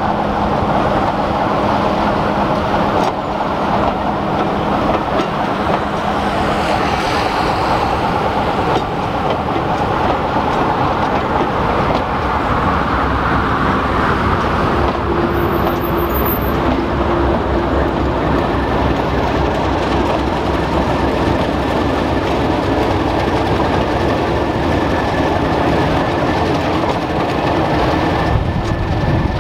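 Diesel-hauled passenger train passing close by: the continuous rumble of coach wheels on the rails mixed with the running of the diesel locomotives' engines.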